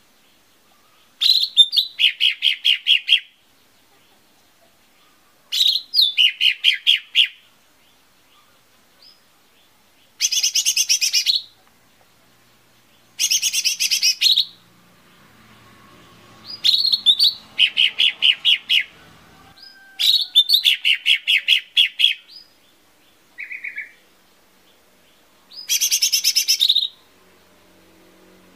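Cucak ijo mini (lesser green leafbird) singing loud phrases of one to two seconds every few seconds, each a rapid run of repeated notes that opens on a higher note.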